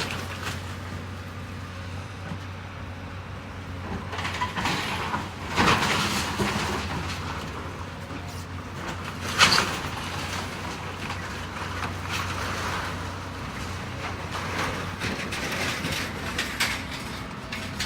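Heavy demolition machine running steadily while debris of a building crunches and crashes under it. There are two sharp crashes, one about five and a half seconds in and a louder one about nine and a half seconds in, with smaller knocks between.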